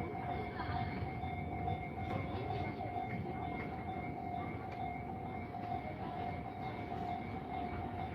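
Railway level-crossing alarm ringing on with a steady tone while a Tobu Tojo Line train runs past, its running noise a low haze underneath.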